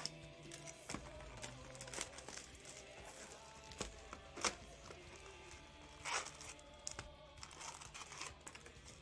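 Trading card packs being torn open, their wrappers crinkling and ripping in a handful of short, irregular crackles, over faint background music.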